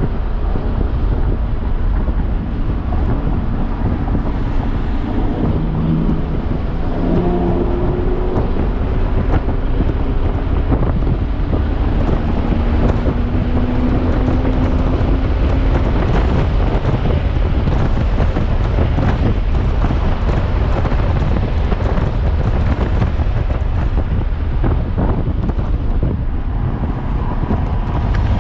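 Audi S5 with a six-speed manual gearbox driven hard on a race track, heard from inside the cabin: heavy wind and road noise, with the engine note rising under acceleration twice.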